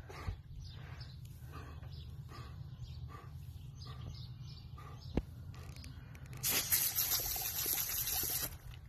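A wet dog panting, soft breaths about twice a second, with a single click about five seconds in. Then, about six and a half seconds in, a garden hose spray nozzle hisses for about two seconds as the jet is aimed into the dog's mouth.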